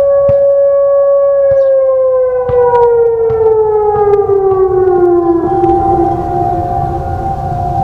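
Several tornado sirens sounding at once. From about a second and a half in, one siren winds down, its pitch falling steadily until about five seconds in, while another holds a steady tone. Scattered sharp knocks sound over them.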